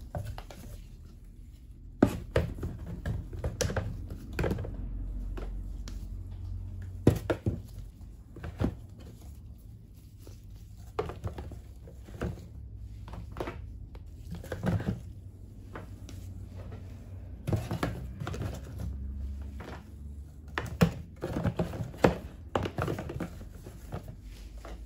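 Lidded plastic tubs being set down and shuffled into a cardboard shipping box: irregular knocks and clunks of plastic against cardboard and against each other, over a low steady hum.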